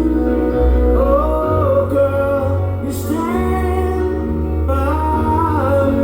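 Live band playing a slow ballad: steady bass and sustained keyboard chords under a high lead voice singing three long, wavering phrases.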